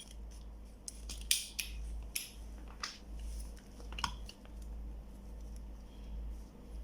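Scattered light clicks and taps from a circuit board and multimeter probes being handled, about six in the first four seconds, over a low steady hum.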